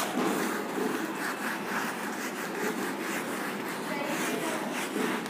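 Whiteboard being wiped clean, a run of repeated rubbing strokes across its surface.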